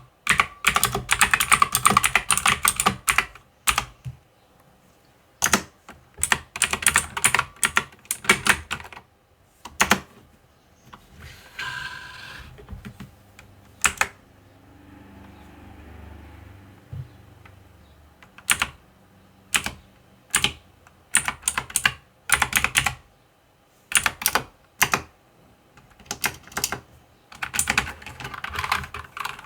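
Typing on a mechanical keyboard: quick runs of key clicks in bursts of a second or two, broken by short pauses, with a softer, quieter stretch near the middle.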